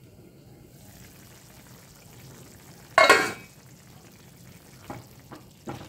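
Curry simmering in a kadai with a low, steady bubbling hiss. About three seconds in, the steel lid is lifted off with a brief metallic clatter that rings for a moment, then a spatula knocks lightly against the pan a few times.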